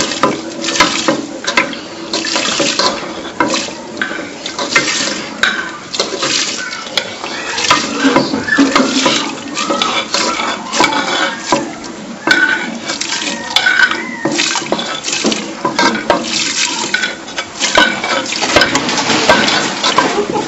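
Wooden spoon stirring semolina pearls in hot milk in a large aluminium pot: a steady swish of liquid with many irregular scrapes and knocks of the spoon against the pot.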